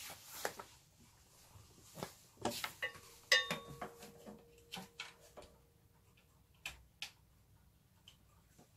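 Scattered light clicks and knocks of a USB charging cable and plug being handled and plugged in, the loudest click about three seconds in. A faint steady hum starts with that click and stops a few seconds later.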